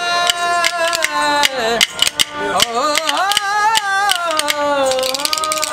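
Rajasthani folk music: a man singing long, wavering notes to a bowed ravanahatha, with wooden khartal clappers clicking rapidly throughout.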